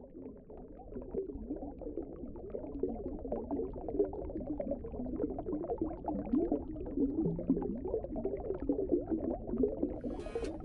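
Underwater bubbling and gurgling sound effect, a steady burble that slowly grows louder. Strummed guitar music comes in near the end.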